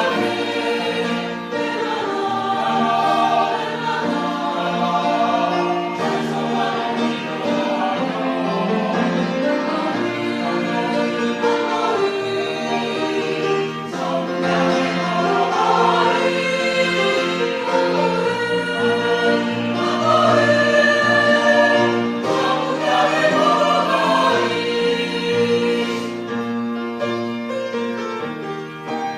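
Church choir singing a sacred anthem, many voices holding sustained chords, easing off slightly near the end.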